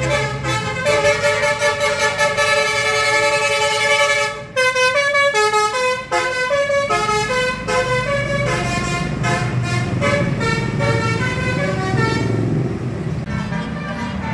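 Indonesian bus telolet horn, a multi-tone air horn: one long chord held for about four seconds, then a quick tune of short notes stepping up and down. The bus's engine runs underneath, and the horn fades out about twelve seconds in, leaving engine and road noise.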